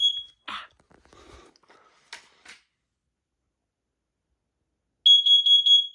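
First Alert CO400 carbon monoxide alarm sounding on test with a loud, shrill single-pitched beep. The first beep ends just after the start, a few handling clicks follow, and near the end a new quick run of beeps starts.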